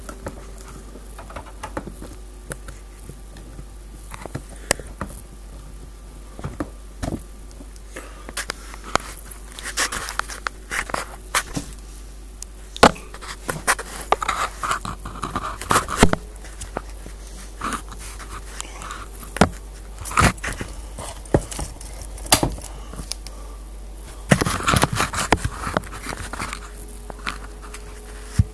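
Handling noise from the recording device: irregular knocks, scrapes and rustles close to the microphone, with denser rustling in two stretches. A faint steady hum runs underneath.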